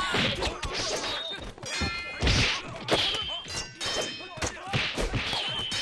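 A scuffle: repeated thuds and blows with a few ringing metallic clangs, mixed with short shouts.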